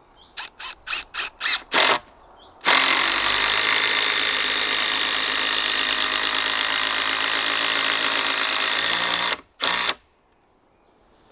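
Cordless impact driver driving a long hex-head screw through a log crosspiece into an upright log. About seven short trigger bursts start the screw, then the driver runs steadily for about six and a half seconds under load. One last short burst seats it.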